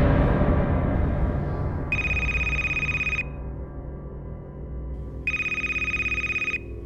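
Low, dark rumbling music fades away over the first couple of seconds. Then a telephone rings twice, each ring a high, fluttering electronic trill lasting a little over a second.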